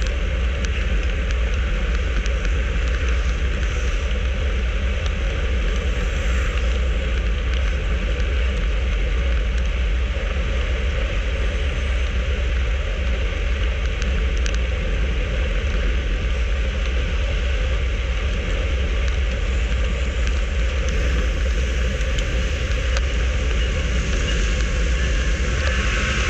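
Wind rushing over an action camera's microphone on a road bike moving at about 40 km/h: a steady heavy rumble with hiss above it. A brighter hiss swells near the end.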